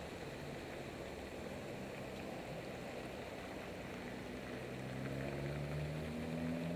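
Road traffic at a busy intersection: a steady hiss of tyres and engines as cars cross, with one engine's note rising as it accelerates in the last few seconds.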